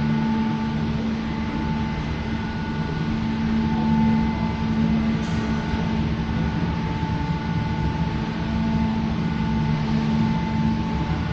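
Cable car gondola running: a steady mechanical hum, several even tones held over a low drone.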